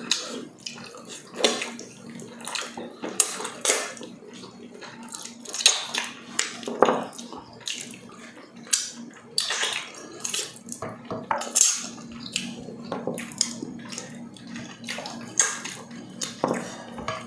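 Two people eating balbacua, braised trotters with rice, by hand: wet chewing and lip-smacking, with scattered clinks of a utensil against plates and a glass bowl. Faint steady hum underneath.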